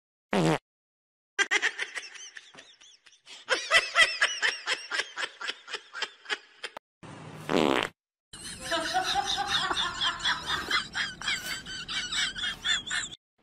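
Cats' vocal sounds: rapid, stuttering laugh-like calls in several runs, with short gaps between them.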